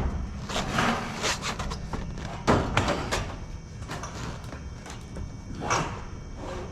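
Metal roofing panel being shifted into place on a metal roof: scattered squeaks and scrapes of metal and rubber-soled shoes on sheet metal, with a sharp knock about two and a half seconds in and a smaller one near six seconds.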